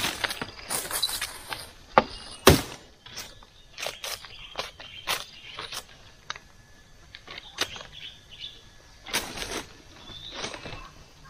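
Dry leaves and sticks crackling and snapping irregularly underfoot and in hand while firewood is gathered, with two sharper knocks about two seconds in, half a second apart.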